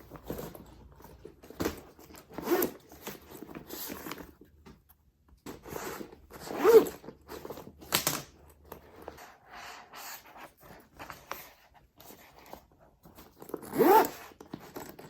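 Handmade fabric bike frame bag being turned inside out and handled: irregular rustling and scraping of the cloth with a few short zipping strokes, the loudest about halfway through and again near the end.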